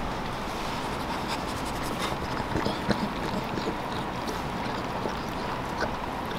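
Boston Terrier mother licking and nuzzling her newborn puppy on a towel: soft, irregular wet clicks and rustles, a few a little louder about two and a half to three seconds in, over a steady background hiss.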